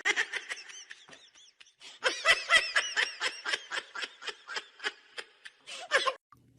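A person laughing in a long run of short, quick pulses, about four or five a second, loudest in the middle, which stops suddenly about six seconds in.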